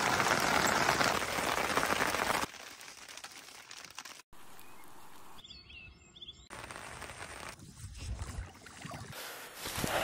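Outdoor sounds cut together from several shots: a loud, even rushing noise for the first two and a half seconds, then quieter open-air ambience with a short burst of birdsong about five and a half seconds in.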